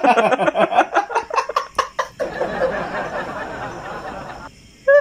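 Laughter in quick rhythmic bursts for about two seconds, then a steady breathy, hissing stretch that cuts off suddenly shortly before the end.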